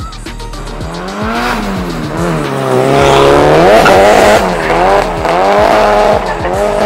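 Drift car's engine revving up and dropping back over and over as the car slides, with tyres screeching. It is loudest about halfway through.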